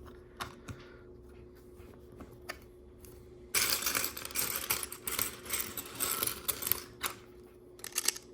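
Loose plastic LEGO pieces clicking and clattering as hands rummage through them. A few separate clicks come first, then a dense rattling clatter from about three and a half seconds in until about seven seconds, then a few more clicks.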